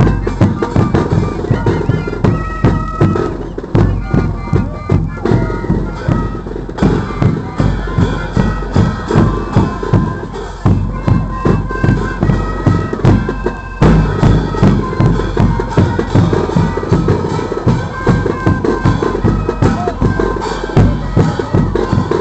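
Live carnival band playing a dance tune: wind instruments carry the melody over a bass drum and clashing cymbals, beating about twice a second.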